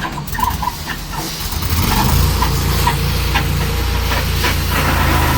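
Sawmill engine running and coming up in speed, its low steady hum growing louder about two seconds in. Short high squeaks recur over it.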